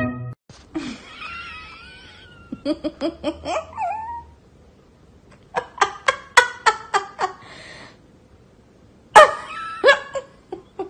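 Laughter in several rhythmic bursts of short pulses.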